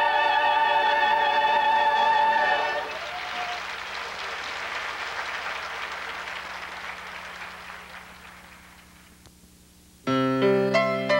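A choir with orchestra holds a final chord, cutting off about three seconds in, followed by audience applause that gradually dies away; near the end a piano starts playing.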